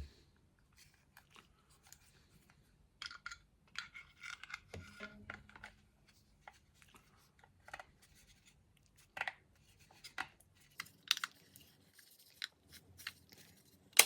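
Small 3D-printed plastic mount parts handled and fitted together: scattered light clicks and taps, with a stretch of rustling and scraping a few seconds in and a few sharper clicks later.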